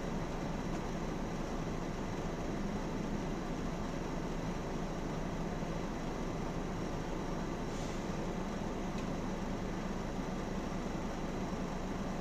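Mercedes O405N city bus's diesel engine idling steadily while the bus stands at a red light, heard from the driver's cab.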